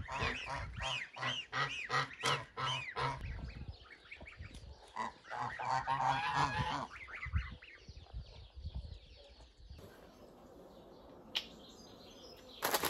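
Geese honking: a quick run of repeated calls, then another burst a few seconds later, after which it goes quiet.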